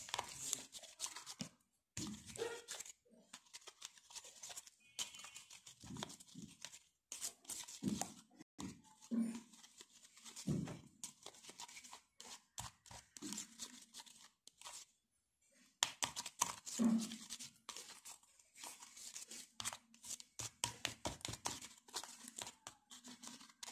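Thick white screen-printing binder paste being stirred by hand in a plastic bowl: irregular wet squelching and scraping, with a brief pause about fifteen seconds in.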